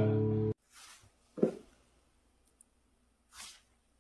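Acoustic guitar chord ringing, cut off suddenly about half a second in. Then near silence with a few brief, unclear sounds, the plainest about a second and a half in.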